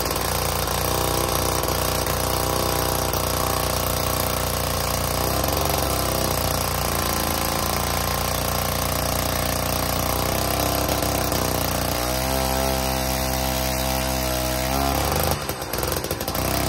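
Gas-powered one-man earth auger running under load as it bores a post hole, its engine note shifting in pitch as it digs. Near the end the engine eases back briefly, then picks up again.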